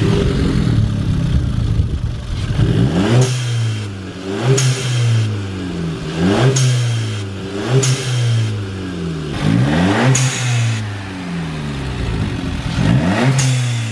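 Audi A1's 1.4 TFSI turbocharged four-cylinder petrol engine, on its stock air filter, free-revved about six times: each blip rises in pitch and falls back toward idle, with a short hiss at the top of several. It already sounds quite loud on the stock intake.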